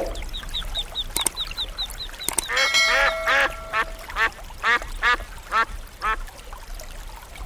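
Animal calls: a quick run of high chirps, then a string of harsh, duck-like calls about twice a second that stop about six seconds in.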